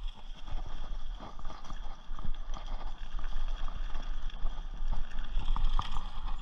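Rocky Mountain Thunderbolt mountain bike riding fast on a dirt trail: steady tyre and trail noise with frequent short rattles and knocks from the bike over bumps.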